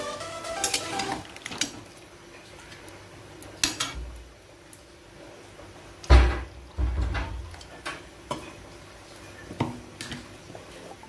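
Steel spatula scraping and clinking against a steel kadai while stirring a curry of potato, pointed gourd and prawns. About six seconds in, a cup of water is poured into the pan with a loud splash, followed by a few scattered clinks.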